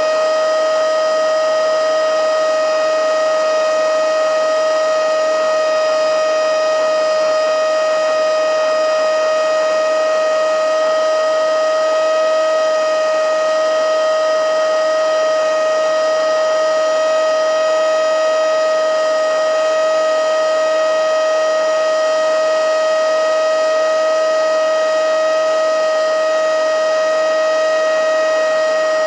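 Handheld blowing/sucking mini vacuum cleaner (XCQ-5588 / XCQ-508) running steadily on battery: a loud, even, high-pitched motor whine over rushing air, with no change in pitch.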